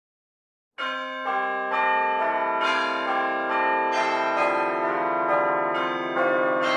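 Bell-like chimes struck one after another, a new note about every half second, each ringing on under the next. They start suddenly about a second in.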